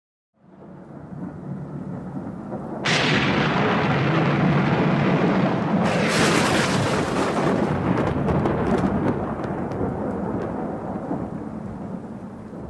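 Rolling thunder fading in, with a sudden loud crack about three seconds in and another about six seconds in, then slowly dying away.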